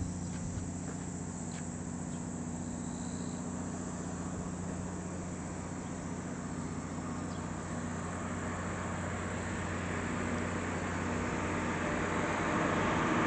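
Train approaching on the railway line, its rumble growing steadily louder over the second half, over a steady low hum. Insects chirp faintly at first and are then covered by the train.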